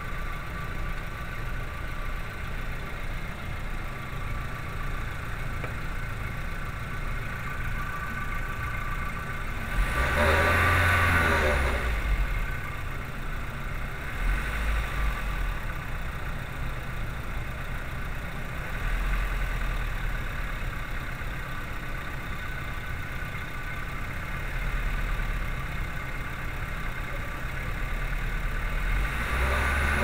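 VW 2.0-litre four-cylinder engine running at idle, raised briefly in revs about ten seconds in and raised again near the end to roughly 1,900 rpm. The revs are raised to build oil pressure while a test light on the oil pressure switch checks whether the switch closes.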